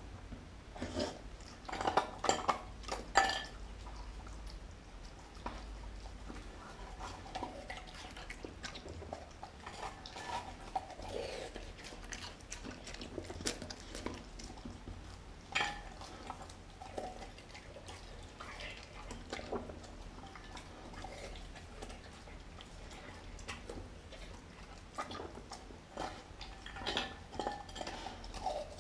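German Shepherd–Chow Chow mix dog eating raw meat from a glass bowl: chewing, with irregular clicks and knocks of teeth and food against the glass, loudest in a cluster about two to three seconds in.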